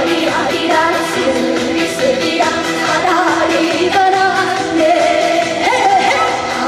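A Korean trot song performed live: a woman's voice singing the melody over a loud backing band.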